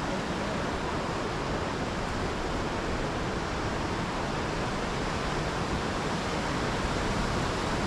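Steady rushing noise of ocean surf along the shore, even throughout with no single wave crash standing out.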